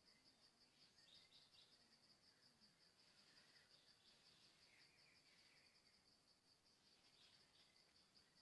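Faint insect chirping, a fast, even pulsing at one high pitch that runs on steadily, with a few faint bird chirps over it.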